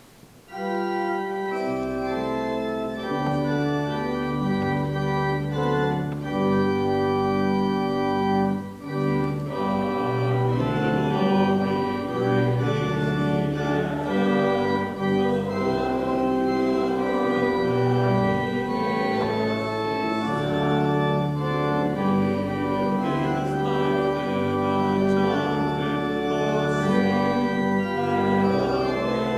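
Organ playing a hymn in sustained chords over a low bass line, starting about half a second in.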